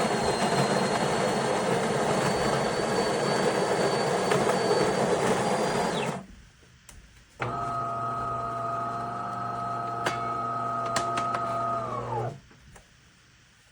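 De'Longhi Magnifica Start espresso machine working through a brew cycle: its built-in grinder grinds beans with a high whine for about six seconds and stops. After a short pause a motor in the machine hums steadily for about five seconds, with a few light clicks, and winds down near the end.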